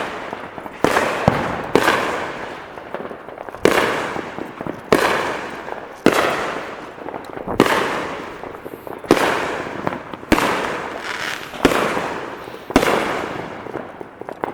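Fireworks exploding in quick succession, about a dozen sharp bangs roughly a second apart, each followed by a fading crackle.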